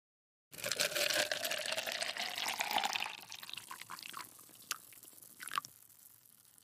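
Coffee poured in a thin stream from a copper cezve into a glass cup, splashing steadily with a pitch that rises as the cup fills. The pour tails off about three seconds in, leaving a couple of last drips near the end.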